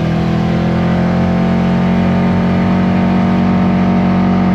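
ATV engine running at a steady speed while driving along a trail, an even drone that holds its pitch.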